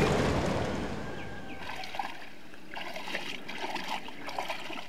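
Water trickling and splashing along a small boat's hull as it glides through calm water, loudest in the first second.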